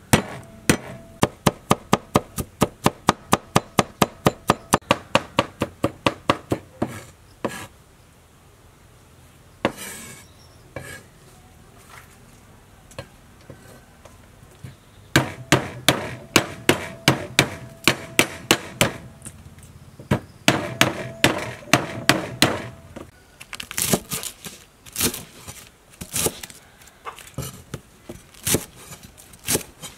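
Cleaver chopping garlic on a wooden cutting board in fast, even strokes of about four a second. The strokes pause for several seconds around eight seconds in, then resume. Near the end come irregular, sharper cuts through lemongrass stalks.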